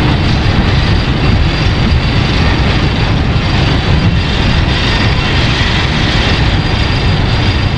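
Loud, steady rushing noise over a deep rumble, a monster-movie sound effect that cuts in abruptly and holds at an even level.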